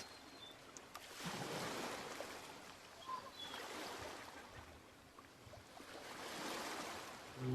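Faint sea waves washing on the shore in three slow swells, with a couple of faint high chirps near the middle.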